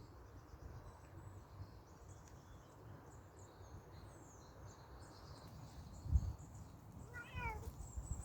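Bengal kitten giving one short meow about seven seconds in, just after a low thump.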